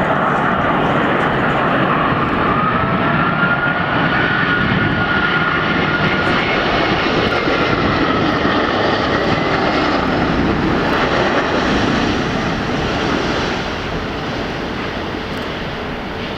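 Jet engines of a British Airways Airbus A380 (Rolls-Royce Trent 900s) running loud as the airliner lands, a steady rush with a faint whine wavering in pitch. The noise eases from about twelve seconds in.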